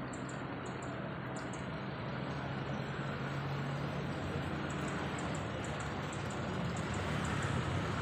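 Steady outdoor rushing noise with a low hum under it. Short, high chirps in quick pairs repeat through the first second and a half, and again from about five to seven and a half seconds in.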